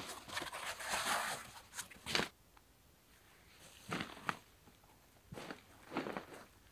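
Rustling and scraping of a foam sleeping mat and tarp groundsheet being unrolled and smoothed out by hand. It comes as a dense run of rustles for about two seconds, then after a pause a few short separate scuffs.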